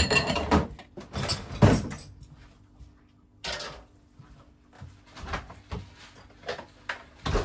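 Kitchen handling sounds: a rushing scrape lasting about two seconds, another short one a little after three seconds, then a run of light knocks and clicks with a sharper knock near the end.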